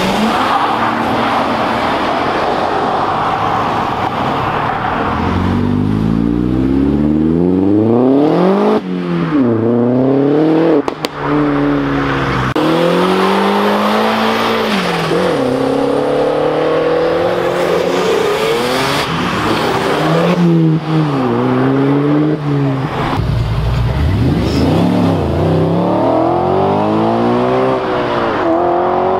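Cars accelerating hard one after another, engines revving up and dropping back through gear changes, the pitch climbing and falling again and again.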